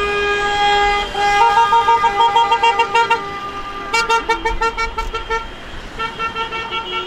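Car horns honking as a line of cars drives past: one long held blast, then quick runs of short repeated honks, about five a second, breaking off and starting again, over the hum of passing traffic.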